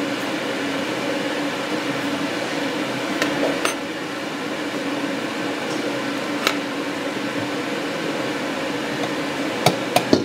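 A steady machine hum with a fixed low tone, as from a kitchen appliance running. A few light clicks and clinks of utensils and dishes on the countertop come over it: one about three seconds in, one near the middle, and two close together near the end.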